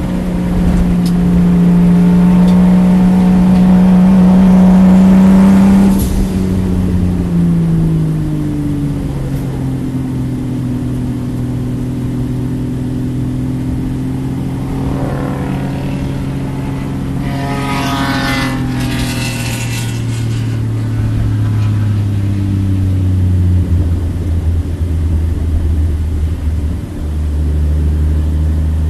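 Toyota Supra MKIV engine heard from inside the cabin, holding a steady pitch for about six seconds, then easing off with its pitch slowly falling as the car slows. It gives a couple of short rises in revs about two-thirds of the way through, and drops to a low, deep note near the end.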